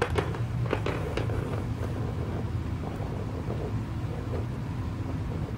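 Steady low background hum with a few light taps in the first second or so: plastic toy figures being handled and set down on a wooden table.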